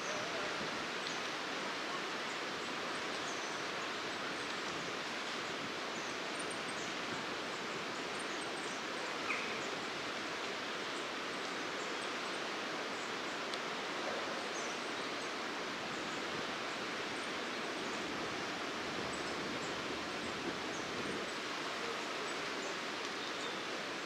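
Faint, very high-pitched, thin calls of goldcrests scattered through a steady outdoor hiss, with a single soft tick about nine seconds in.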